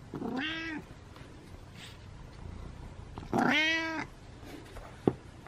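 Kitten meowing twice: a short meow right at the start, then a louder, longer meow about three seconds later. A sharp click sounds near the end.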